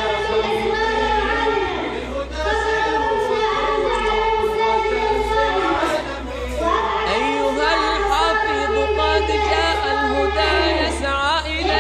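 A choir singing an unaccompanied Arabic nasheed, holding and sliding between notes without clear words, over a steady low drone.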